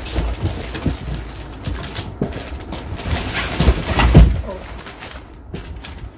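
Cardboard shipping box and plastic wrapping being handled: rustling and scraping with several dull thumps as packed chair parts are moved in the box, the loudest thumps a little before and just after four seconds in.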